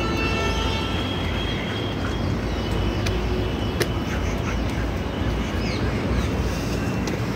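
Steady outdoor morning ambience, a constant rushing noise with a few faint, short bird chirps. A held pitched tone fades out in the first second.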